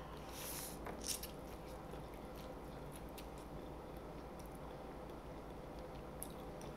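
Mouth sounds of eating noodles: a short slurp about half a second in, then quiet chewing with small wet clicks.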